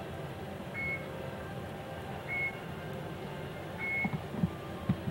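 Elevator floor-passing beeps: three short high beeps about a second and a half apart as the car rises past each floor, over the steady hum of the moving cab. A few low knocks come near the end.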